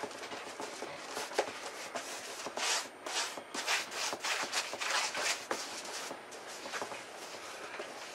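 Paintbrush scrubbing flat latex house paint onto a foam board in quick back-and-forth strokes, a rough swishing that comes and goes and is busiest in the middle.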